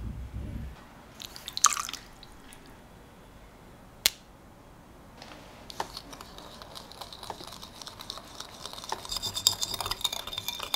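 Wire whisk stirring sugar and salt into a liquid in a glass bowl, its tines ticking rapidly against the glass, busier and louder near the end. Before the stirring starts there is a clink and one sharp tap.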